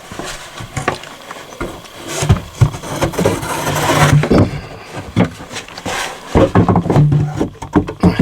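A plywood piece knocking and scraping against wooden framing as it is worked into place by hand, with a run of irregular knocks and rubbing.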